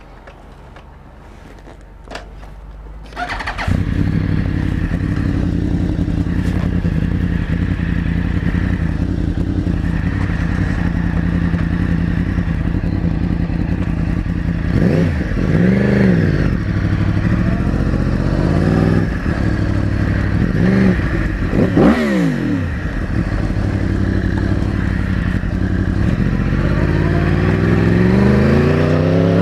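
2009 Yamaha R1's crossplane inline-four engine: a few clicks, then the engine starts about three and a half seconds in and idles steadily. It revs up and down several times, then climbs steadily in pitch near the end as the bike pulls away.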